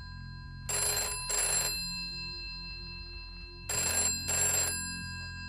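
Old-style desk telephone bell ringing for an incoming call, in the two-burst double-ring pattern: two double rings about three seconds apart, over a low steady drone.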